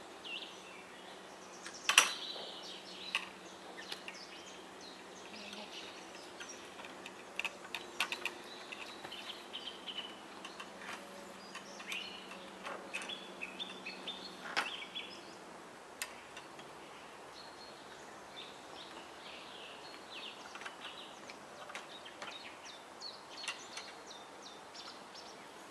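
Occasional sharp clicks and knocks from a metal telescopic pole and the nest box hanging on it as they are raised into the tree branches; the loudest click comes about two seconds in. Small birds chirp in the background throughout.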